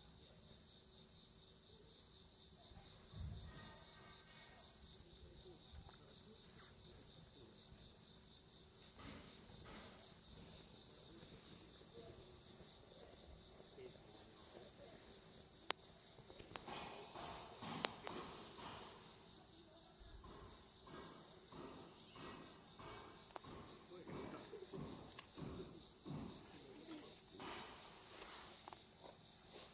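Steady, high-pitched chorus of insects, continuous throughout.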